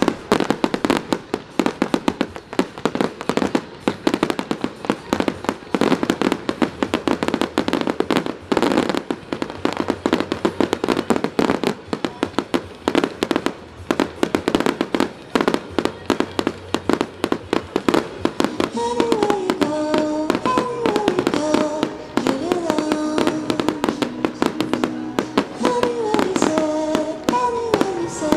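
Fireworks and firecrackers going off in a dense, continuous barrage of rapid pops and crackles. From about two-thirds of the way in, music with a melody is heard under the pops.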